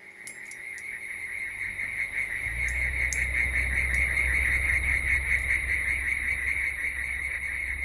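Insects chirring steadily with a fast pulsing trill, fading in, with a low drone joining about two and a half seconds in.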